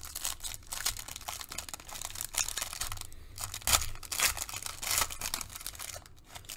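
Foil wrapper of a trading-card pack being torn open and crinkled by hand: a dense run of crackles with louder rips about two and a half, four and five seconds in.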